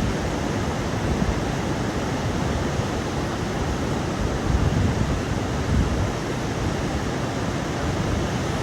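Steady rush of ocean surf mixed with wind, with a few louder low surges about halfway through.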